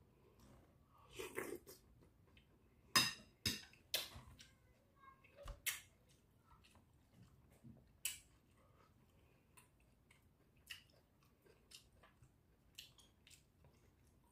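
A man eating with a spoon: chewing with mouth smacks, and a cluster of sharp clicks from about three to six seconds in and another near eight seconds.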